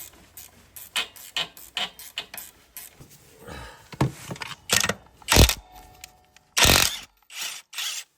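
Clicks, knocks and rustles of motorcycle parts and tools being handled during dismantling, with one loud knock about five seconds in and a short hissing burst soon after.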